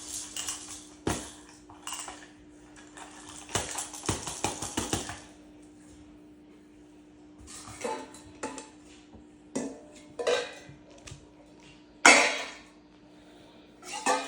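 A rattle shaken in bursts, giving a metallic clinking clatter, followed by a few separate sharp clatters, the loudest near the end. A faint steady hum lies underneath.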